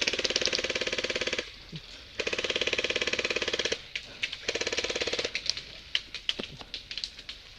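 Airsoft rifles firing on full auto: three long bursts of rapid, even clicking shots, then a few scattered single shots near the end.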